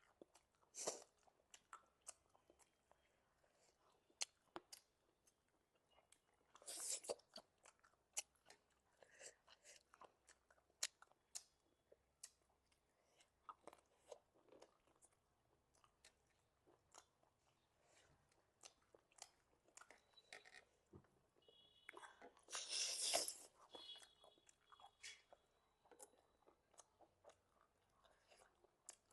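A person chewing food: quiet, steady chewing with many small mouth clicks, and two louder, longer bursts of eating noise about seven seconds in and again around twenty-three seconds in.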